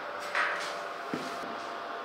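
A short scraping swish about a third of a second in, then a light knock, as a thin metal rod is handled against a steel square-tube frame; a faint steady hum underneath.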